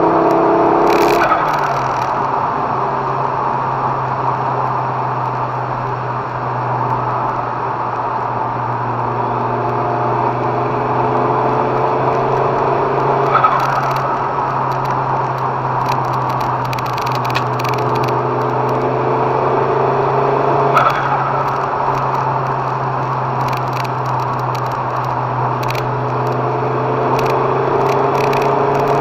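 Volvo T-5R's turbocharged five-cylinder engine, heard from inside the car, pulling under acceleration with a rising note. A brief turbo chirp comes each time the throttle is lifted, three times: about a second in, about halfway through, and about two-thirds of the way through. The chirp comes with the newly fitted intake pipe.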